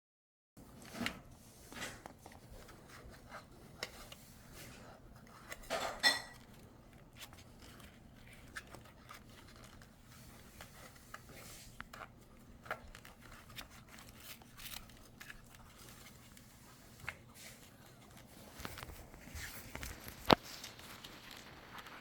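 Scattered clicks, taps and rustling of plastic parts and tools being handled, with a cluster of noises about six seconds in and one sharp click near the end.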